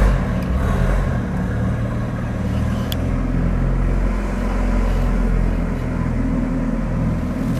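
Chevrolet Opala engine running through an opened exhaust cutout: a loud, steady open-exhaust rumble, with one sharp crack about three seconds in.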